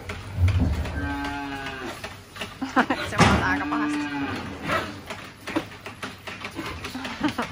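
Two short moos from dairy calves, a little under a second each, the second about two seconds after the first, while the calves drink at a teat bucket. Scattered knocks and clicks run underneath.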